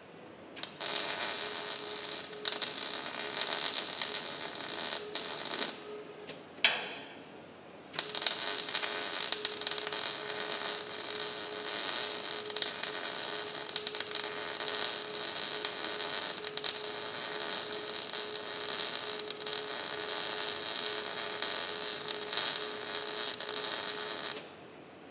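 Electric arc welding: a crackling arc runs for about five seconds, stops with a brief sputter in the gap, then strikes again and runs steadily for about sixteen seconds before cutting off near the end.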